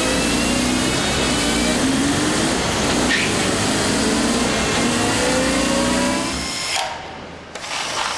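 BMW motorcycle engine running on an end-of-line roller test stand, revving up again and again with its pitch climbing as it is worked through the gears. The engine sound stops about six and a half seconds in, followed near the end by a few sharp clicks and knocks.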